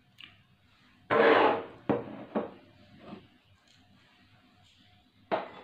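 Kitchen handling noises: a wooden spoon scraping and knocking in a rice cooker's inner pot and a ceramic bowl clattering. They come in a few short bursts, the loudest about a second in and another near the end.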